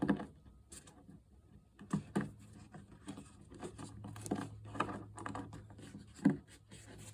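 Hands handling the small fittings of a diesel heater's fuel pickup, an O-ring and a nut among them: scattered clicks, taps and scratches, the sharpest at the start, about 2 s in and near the end, over a steady low hum.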